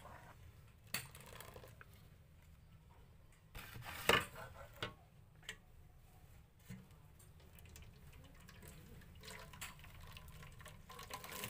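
Kitchenware handling: a plastic blender jar and aluminium pot give a few light knocks, the loudest about four seconds in. Near the end, passion fruit juice trickles into the pot as the pulp is squeezed through a cloth.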